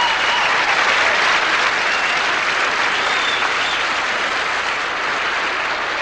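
A large audience applauding, the clapping slowly dying down toward the end.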